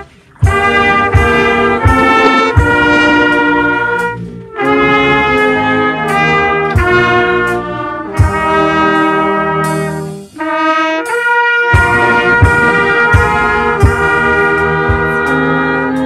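Trumpets playing a tune in held notes close to the microphone, with a steady beat underneath. The playing breaks off briefly near the start, about four seconds in, and about ten seconds in.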